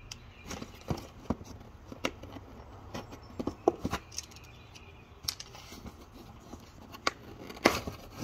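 Scissors cutting the packing tape on a cardboard box, then the box's flaps handled and pulled open, as a run of scattered short snips, taps and cardboard scrapes.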